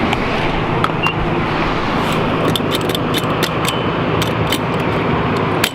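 Steady car engine and road noise with many small, sharp clicks and rattles through it.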